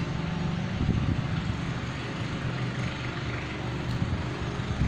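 Steady low mechanical hum with an even hiss over it, holding level without a break.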